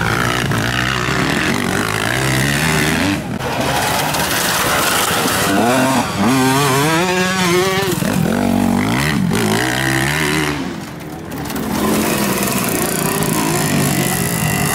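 Motocross bike engines revving through a bend, rising and falling in pitch as the riders open and close the throttle, one bike after another. The engine noise drops for a moment about eleven seconds in, then picks up again.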